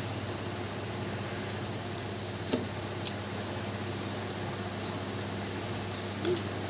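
A hand mixing batter in a steel bowl, with a few sharp clicks of bangles and fingers against the steel, over a steady low hum.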